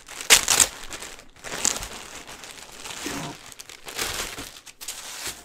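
Clear plastic poly bag crinkling in irregular bursts as it is handled and pulled open around a folded polo shirt, loudest about a third of a second in and again about four seconds in.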